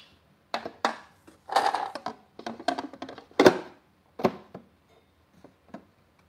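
Handling clatter of a SPINN coffee machine's plastic parts and cardboard packing being pulled off and fitted: a string of short knocks and clatters, the loudest about three and a half seconds in, growing sparser and fainter toward the end.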